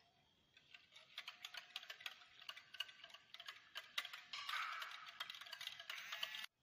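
Wire whisk beating a thin liquid batter in a glass bowl: quick, irregular clicking of the wires against the glass, growing denser and louder about four seconds in, then cutting off suddenly.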